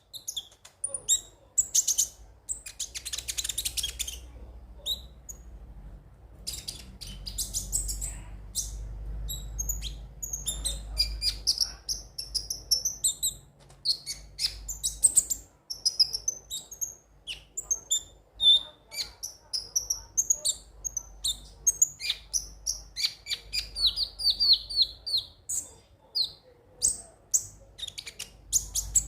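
Konin (kolibri ninja) sunbird singing a fast, busy song of high chirps, twitters and short trills, with a quick run of falling notes near the end.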